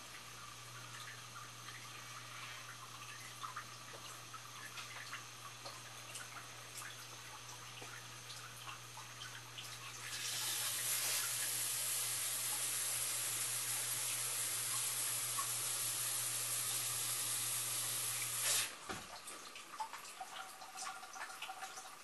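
Sump pump running with a steady electric hum and dripping water. About halfway through, loud rushing water joins it. Both cut off suddenly near the end as the pump shuts off, leaving only drips.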